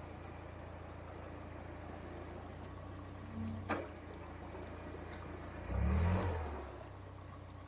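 Narrowboat's diesel engine running steadily at low revs, with a brief rev at about six seconds. A single sharp click comes a little before four seconds.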